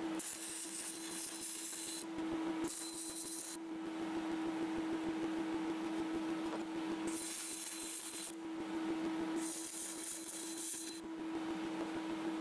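Wire-feed MIG welder laying four short welds, each a burst of arc crackle lasting a second or so, with pauses between them, over a steady hum.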